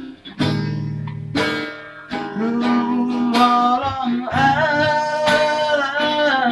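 Acoustic guitar strummed, with a voice singing long held notes over it from about two seconds in.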